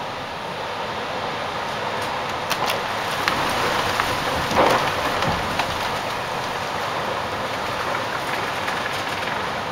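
Heavy rain from a severe thunderstorm: a steady loud rushing hiss, with a handful of sharp taps and a brief louder surge a little before the middle.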